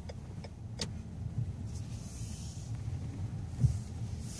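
Low rumble of a car moving slowly in traffic, heard from inside the cabin, with a short click about a second in and a single thump near the end.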